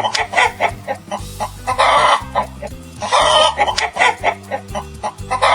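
Chicken clucking: several loud squawks about a second and a half apart, with rapid short clucks between them, over a bouncy children's music backing.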